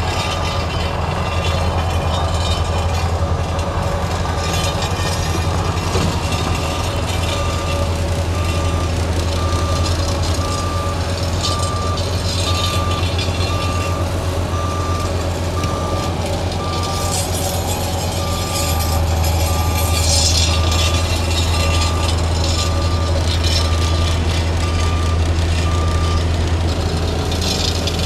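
Diesel road-paving machinery running with a steady low rumble that grows louder about two-thirds of the way in, while a backup alarm beeps about once a second and stops near the end.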